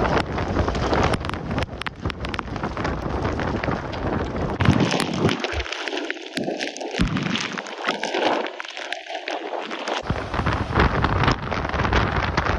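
Tropical-storm wind gusting hard on the microphone over heavy storm surf breaking on the shore. The deep rumble drops away for a few seconds in the middle and comes back near the end.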